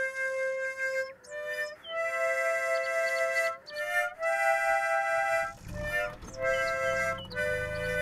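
Background music: a slow melody of long held notes, changing about once a second, with a low bass part coming in a little past halfway.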